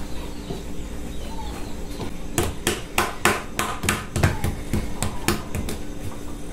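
Dough being stirred in a mixing bowl, the utensil knocking against the bowl in a quick, irregular run of about ten sharp knocks from about two seconds in.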